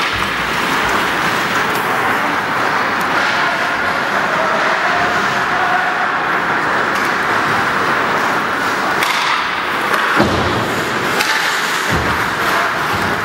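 Ice rink din during a junior ice hockey game: a steady wash of skates and crowd noise, with a couple of sharp knocks about ten and twelve seconds in.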